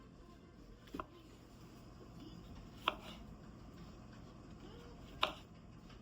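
Three sharp single knocks, spaced a second or two apart, over low steady background noise.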